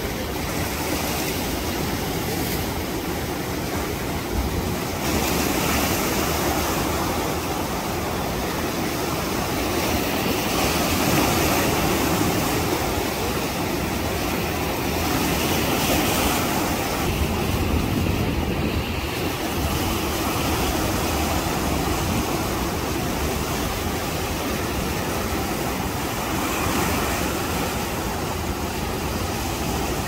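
Sea surf: continuous breaking waves, swelling louder every five seconds or so as each wave breaks and washes in.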